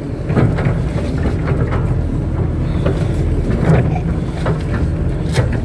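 Kato crawler excavator's diesel engine running steadily while it works earth, with a few scattered knocks.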